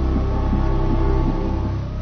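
Low, sustained droning background music of held tones.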